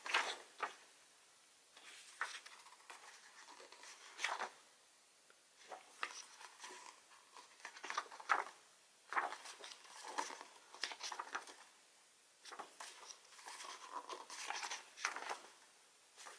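Pages of a photobook being turned and handled: short papery swishes and rustles at irregular intervals, with quiet gaps between.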